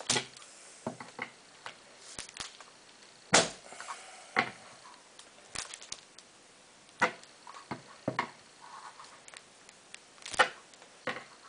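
Divider plates being pried out of a block of hard, brittle salt soap with pliers: a run of irregular sharp cracks and snaps, the loudest about three and a half and ten and a half seconds in, with fainter clicks and scrapes between them.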